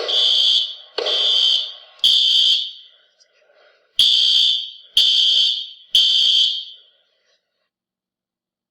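Building fire alarm horn sounding in the three-pulse evacuation pattern: three loud, high, buzzing tones about a second apart, each beginning with a sharp click, a pause, then three more before it stops.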